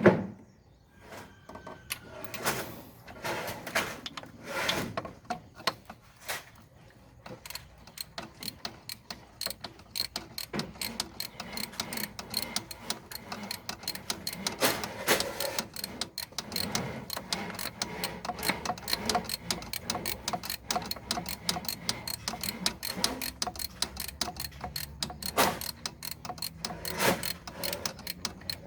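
Ratchet wrench clicking in rapid runs, with a few louder metal knocks, as bolts are turned on the engine's refitted cylinder head.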